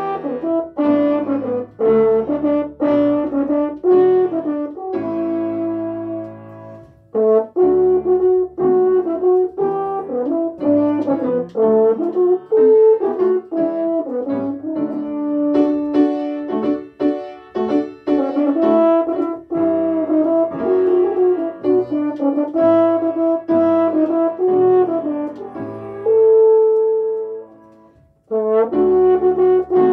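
French horn playing a slow melody, phrase by phrase, with a short break about seven seconds in and a long held note that stops shortly before the end.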